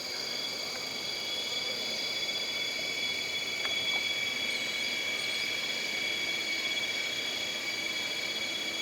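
Jungle ambience: a steady chorus of insects shrilling at several high pitches at once, with a few faint, brief high chirps about halfway through.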